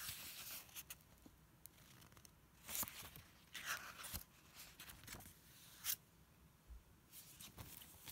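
Photobook pages being turned by hand, paper rustling and swishing in several short, faint bursts a second or two apart.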